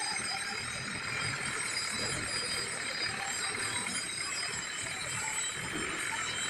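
Steady mechanical noise with several faint, steady high-pitched whining tones, unbroken throughout.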